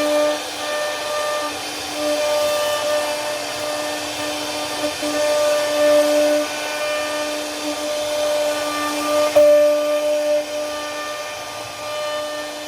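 CNC router spindle running at a steady high pitch with a noisy hiss as the bit carves wood, the tone swelling and dipping as the cut goes on.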